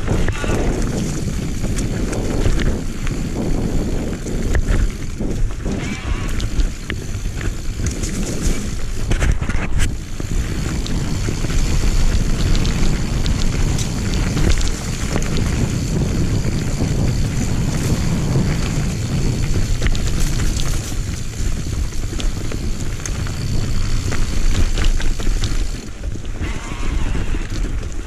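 Wind buffeting the microphone of a handlebar-mounted camera on a mountain bike descending a dirt singletrack. Tyres run over dirt and dry leaves, and short clicks and rattles come as the bike goes over bumps.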